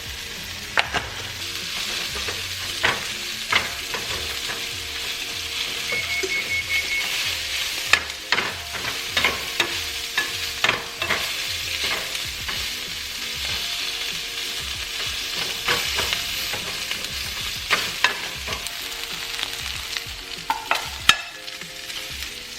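Chopped chicken sizzling in a hot pan, with a utensil clicking and scraping against the pan as the meat is stirred and broken up.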